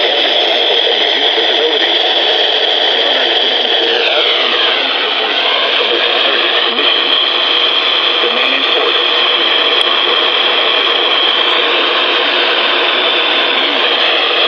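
Handheld weather radio hissing with loud static after losing the station's signal, with whistling tones on top that slide down in pitch about four seconds in and then hold steady.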